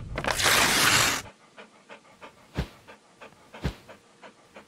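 A loud rushing whoosh in the first second, then a dog panting in quick short breaths, about three or four a second, with two soft thuds in between.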